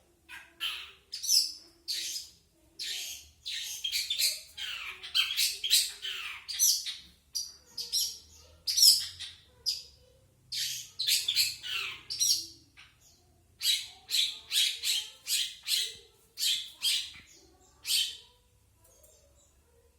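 Long-tailed shrike (cendet) giving quick runs of short, harsh, scratchy calls, with brief pauses between runs; it falls silent near the end. These are the bird's own plain calls, with no mimicry of other birds.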